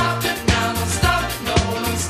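Background pop music with a steady beat, about two beats a second, over a bass line.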